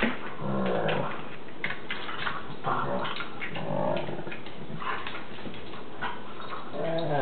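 Dogs making short growls and whines about four times, with light clicks between them.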